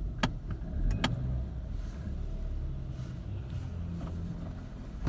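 Volkswagen Tiguan's 1.4 TSI turbocharged four-cylinder petrol engine running steadily just after catching on a cold start, with two sharp clicks in the first second or so.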